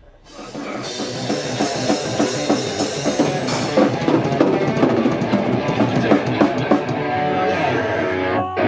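Metalcore band playing: distorted electric guitars and a drum kit with cymbals come in after a brief hush and build up over the first second. Near the end the band holds a ringing chord.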